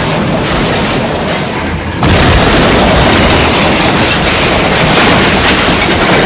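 Train crash sound effect: a loud, continuous crashing rumble that jumps suddenly louder and harsher about two seconds in and stays at that level.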